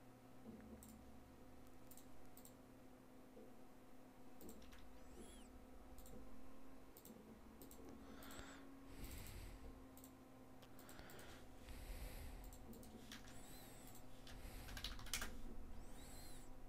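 Faint, scattered computer mouse clicks and keyboard keystrokes over a low steady hum.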